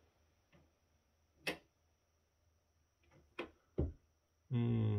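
A few short clicks and knocks from handling the opened battery backup's plastic casing and wires, then near the end a louder low buzzing hum lasting about a second.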